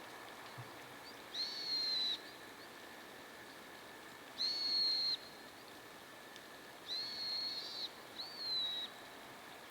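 Siberian long-tailed rosefinch giving four long, level whistled calls a couple of seconds apart, over the steady hiss of light rain.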